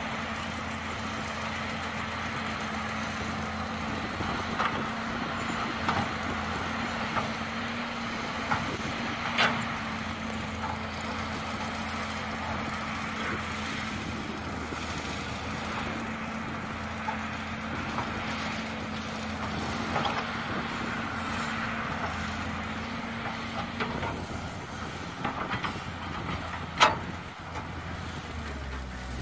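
Caterpillar hydraulic excavator's diesel engine running steadily while it loads a dump truck, with a held engine tone that drops away about 24 seconds in. Several sharp knocks of the bucket and earth landing in the truck bed cut through it, the loudest near the end.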